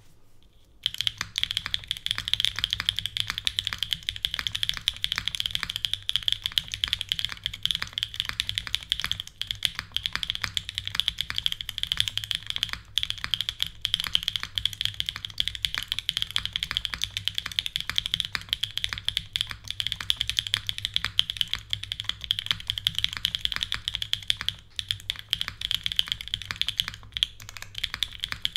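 Fast, continuous typing on a Hoshizora custom mechanical keyboard with lubed Hoshizora switches, GMK keycaps and a carbon-fibre plate with no foam dampening. The typing starts about a second in, with brief pauses near the middle and near the end.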